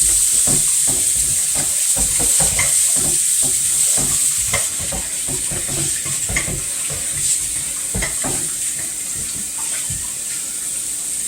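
Food sizzling in a hot pan: a steady hiss with scattered crackles and light utensil clicks.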